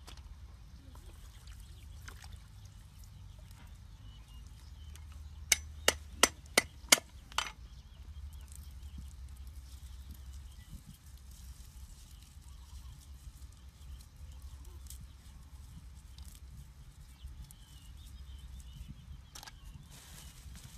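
Green vegetable stalks snapped by hand: about five seconds in, six sharp snaps in quick succession, about three a second, over a quiet outdoor background with a low rumble.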